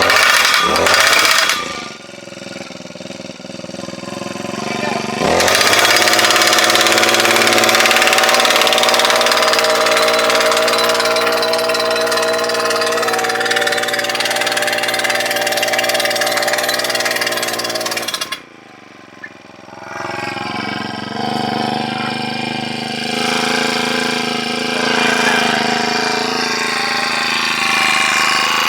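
Gas-powered post driver running and hammering a steel fence post. It goes steadily for about thirteen seconds, dies away with a falling note, then starts hammering again about two seconds later.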